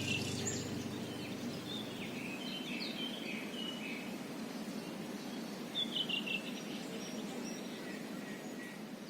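Small birds chirping in short high phrases, about three seconds in and again around six seconds, over a steady low outdoor rush.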